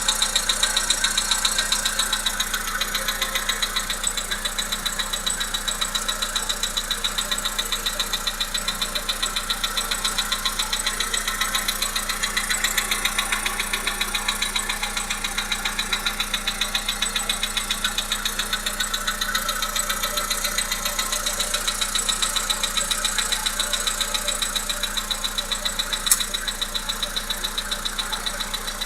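Volkswagen Polo Sedan's 1.6-litre CFNA four-cylinder petrol engine idling steadily with a rapid, regular knock from inside the engine. Near the end there is a single sharp click.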